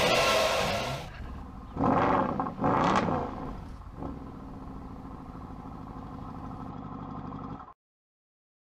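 Engine sound simulator on a Tamiya TT-02 1/10 RC car playing a recorded car engine: it runs loudly at first, gives two quick revs about two and three seconds in, then settles to a steady idle that cuts off suddenly near the end.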